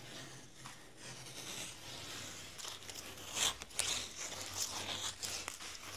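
Blue painter's tape being peeled off the edge of a walnut board and bunched up in the hands: irregular tearing and crinkling, with sharper crackles from about halfway through.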